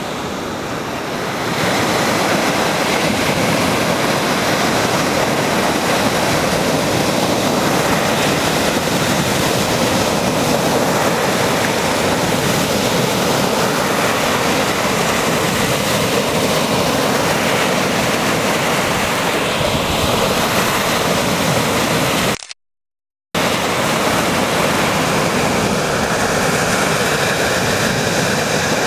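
Choppy waves breaking and washing up onto a pebble shore: a steady, dense rush of surf. The sound drops out completely for about a second some 22 seconds in.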